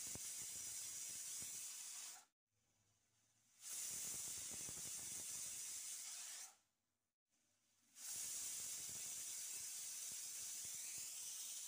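Aluminium pressure cooker's weighted whistle valve venting steam as it cooks the dal under pressure. The steam comes out in three separate hissing spells of about three seconds each, with silence between them.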